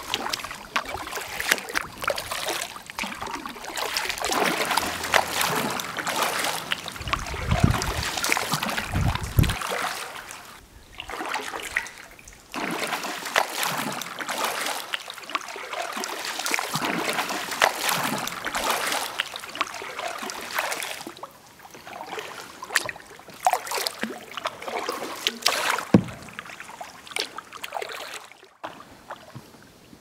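Kayak paddling on calm water: double-bladed paddle blades dipping and splashing in turn, with water trickling off the raised blade. One sharp knock comes near the end.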